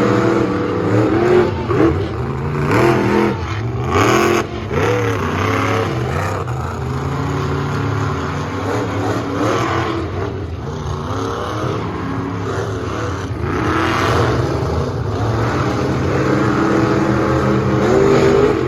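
Monster truck engines racing at full throttle, their pitch rising and falling again and again as the throttle is worked, with a sharp noisy crack about four seconds in.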